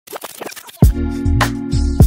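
Background music: a beat that comes in about a second in, with deep kick drums that drop in pitch, a clap and held chords, after a few quick scratchy sounds.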